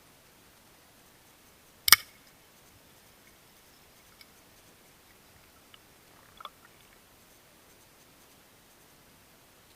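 One sharp, loud click about two seconds in, followed by a few faint ticks, over a steady low hiss.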